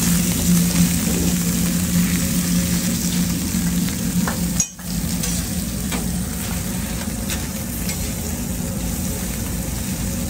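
Steak picadas sizzling on a flat-top griddle over a steady low hum, with a few light clicks of a metal spatula. The sound cuts out briefly about halfway through.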